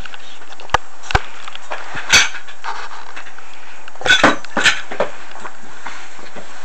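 Camp bed being assembled: its poles and frame knock and clink as they are handled and fitted together, a few scattered sharp knocks with a quick cluster of them about four seconds in, over a steady hiss.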